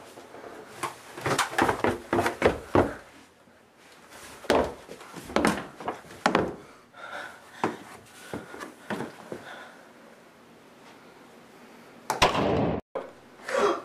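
Irregular knocks and thumps, door-like and wooden, many in quick succession in the first seconds. A louder burst of noise comes near the end and cuts off suddenly.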